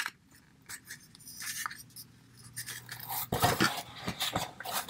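Small plastic toy accessories and their cardboard backing card handled by hand. A few faint clicks come first, then from about three seconds in a quick run of clicks, taps and rustling.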